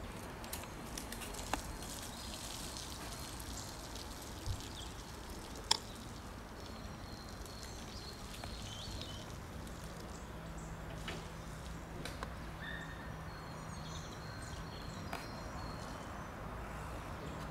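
Quiet outdoor ambience: a steady background hiss with a few sharp clicks and faint high chirps, and a low steady hum coming in about halfway through.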